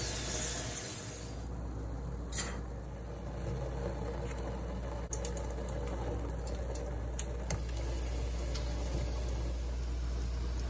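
Corn tortilla sizzling in hot oil in a pan, the frying hiss fading about a second and a half in, over a steady low hum. Then a few light clicks and knocks of cooking utensils, the clearest about two seconds in.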